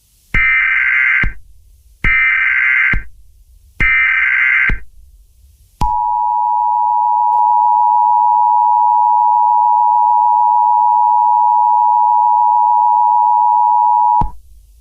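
Emergency Alert System header: three short bursts of warbling digital data tones, each about a second long, then the two-tone EAS attention signal, a loud steady tone held about eight seconds before it cuts off near the end.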